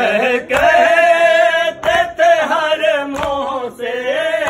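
A chorus of men chanting a nauha (Shia lament) in unison, with long drawn-out, wavering lines and short breaks between phrases. A dull beat sounds every second or so under the voices.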